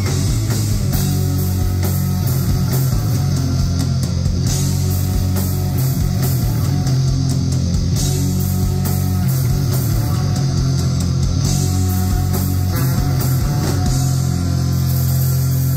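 Live instrumental performance by a small band: electric bass, electric guitar, drums and saxophone playing together in a loud, dense, bass-heavy sound, with sustained low notes near the end.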